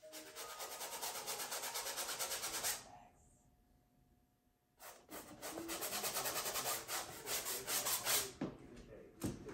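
Paintbrush scrubbing paint onto a stretched canvas in rapid back-and-forth strokes. The strokes stop about three seconds in, resume near five seconds, and end with a couple of duller knocks.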